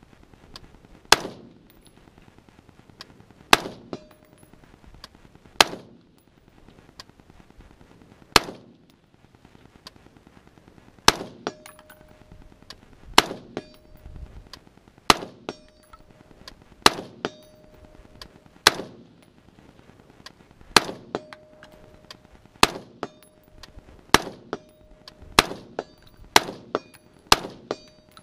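Smith & Wesson M&P15 AR-15 rifle firing single shots, about one every two seconds at first and quickening to about one a second near the end. Many shots are followed by the ringing ping of a bullet hitting a steel target.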